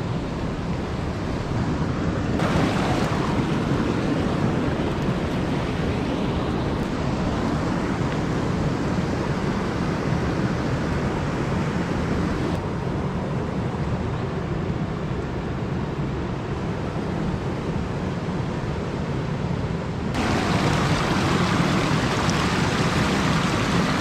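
River water rushing over rocks, a steady noise that steps louder about two seconds in, softer near the middle, and louder again near the end.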